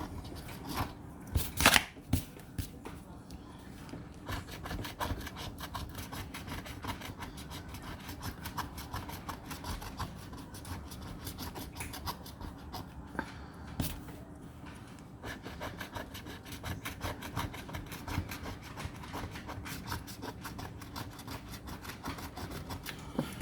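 Scratch-off lottery ticket being scratched: the coating is scraped off in many quick rasping strokes, with one sharp click about two seconds in.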